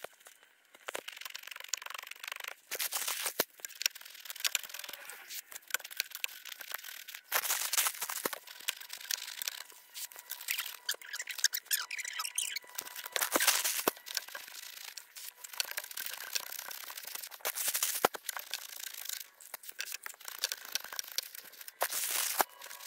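Dry concrete mix being poured from its bag into a fence-post hole: irregular rustling and pouring noise with scattered short clicks.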